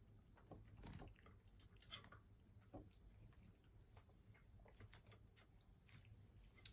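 Cats eating from food dishes: faint chewing with scattered small clicks, a few louder ones about one, two and three seconds in.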